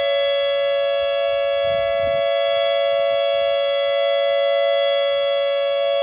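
Federal Signal Modulator 8032B electronic outdoor warning siren sounding its steady alert signal: a loud two-note chord held at one pitch, with no rise or fall.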